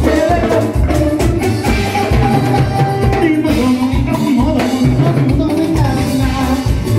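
Live Latin dance-band music played loud through a PA: a steady drum and bass beat under a moving melody line.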